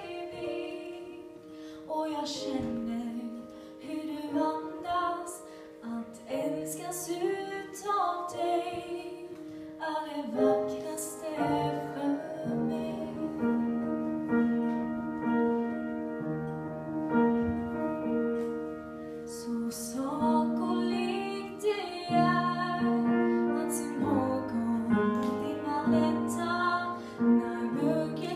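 A woman singing a slow song into a microphone, accompanied by piano.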